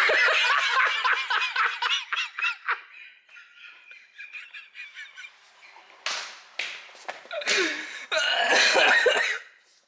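Hearty laughter: high-pitched, wavering laughs for the first few seconds, dying down, then breathier bursts of laughter about six seconds in and again near the end.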